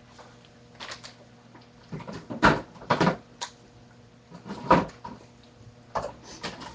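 A series of knocks and clunks from objects being handled and set down, the loudest about two and a half seconds in and again a little before five seconds.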